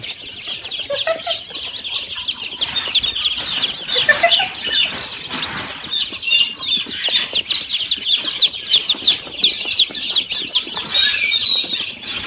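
A flock of birds calling over one another: a dense stream of short, overlapping high chirps that never lets up.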